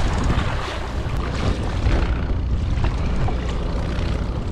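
Wind buffeting the microphone over water sloshing and splashing against the side of a small boat as a hooked shark moves at the surface.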